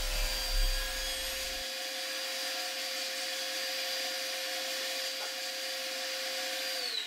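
Record Power TS250-RS sliding table saw running steadily with its dust extraction, with no wood in the blade after the first second or two. Just before the end it is switched off and its pitch falls as it spins down.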